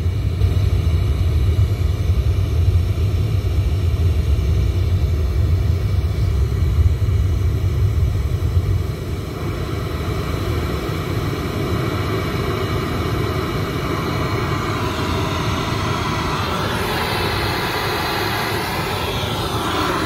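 Diesel generator (a 5.5 kW Varan unit) running at a steady drone, with a strong deep rumble that drops away about nine seconds in. Near the end a second engine-like sound rises and falls in pitch.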